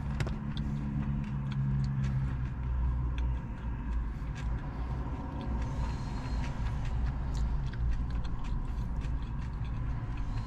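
A steady low rumble of a vehicle or traffic, with many small clicks scattered through it. A low droning hum comes in the first two seconds and then fades.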